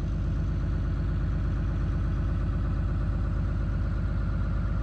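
Diesel engine of a motorhome idling steadily, heard from inside the coach, with an even, fast pulsing drone.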